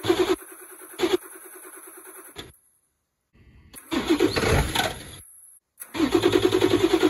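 Ford 7.3 Power Stroke turbodiesel V8 on a cold start, the starter cranking it over in a rapid, even beat while the cold engine struggles to catch. The sound breaks off abruptly into silence twice.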